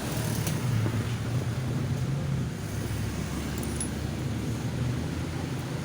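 Steady low engine rumble with an even hiss over it and a few faint ticks.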